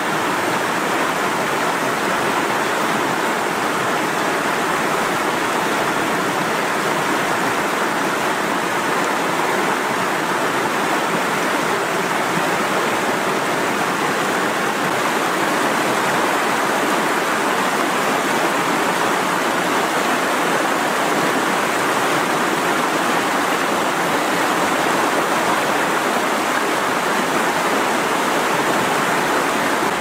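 Mountain river rushing through whitewater rapids: a steady, even rush of fast-flowing water.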